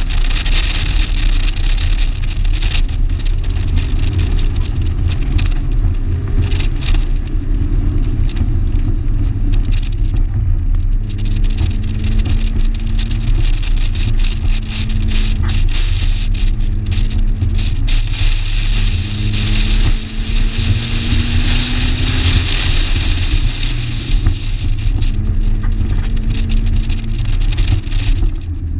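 1987 Shelby GLHS's turbocharged four-cylinder engine running hard on track under a heavy low rumble. Its note climbs slowly in stretches and drops away several times.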